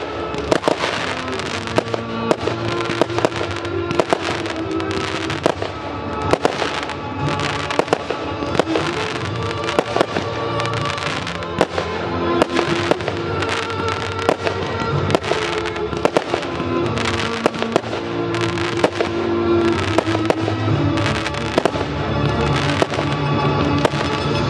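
Aerial firework shells bursting in a steady run of sharp bangs, about one every second or so, over music with sustained notes.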